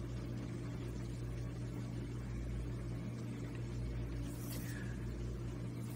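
Steady low hum, with one brief faint noise about four and a half seconds in.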